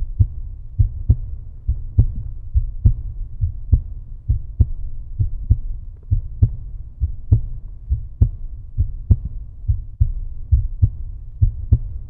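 Heartbeat sound effect: deep thumps in rough pairs, a little under one pair a second, over a steady low rumble.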